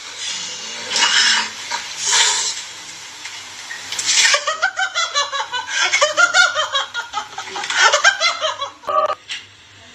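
A cat hissing in short bursts about once a second. About four seconds in, a person breaks into a long run of laughter.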